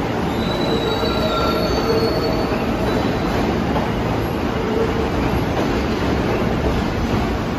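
Pullman Standard R46 subway cars rolling steadily past along the platform, with the dense rumble of steel wheels on rail. Thin high-pitched wheel squeal rises over the rumble from about half a second to two and a half seconds in, then fades.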